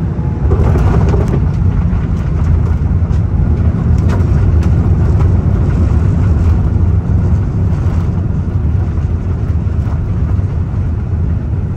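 Boeing 787-9 cabin noise during the landing rollout: a loud, steady rumble of the engines in reverse thrust and the wheels on the runway, with a few light rattles.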